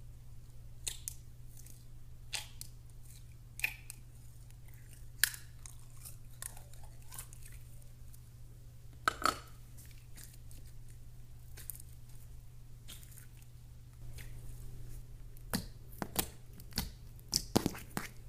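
Clear glitter slime squeezed and pressed by hand, giving sharp wet clicks and pops every second or two, with a quicker run of pops near the end.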